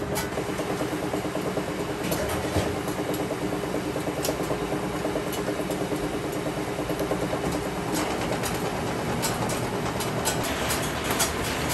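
Old udon noodle-making machine running steadily, its mechanism rattling in a fast, even rhythm under a steady hum, with a few sharp clicks now and then.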